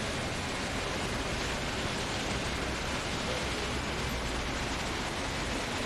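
Steady, even hiss of background noise with no distinct events.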